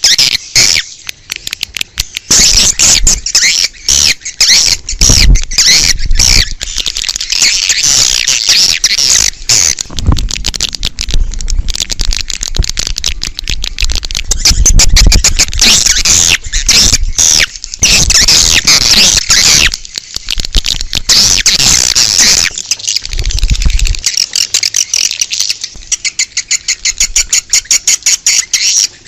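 A swiftlet colony's dense, rapid twittering and chirping: an outdoor swiftlet lure call of the kind played to draw swiftlets to a nesting house. A low rumble comes and goes underneath.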